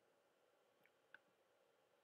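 Near silence: room tone, with two faint short clicks about a second in.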